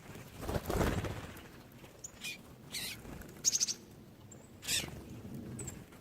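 Small wild birds chirping with short, high calls scattered through, and a quick trill about halfway. A louder rustling noise comes near the start.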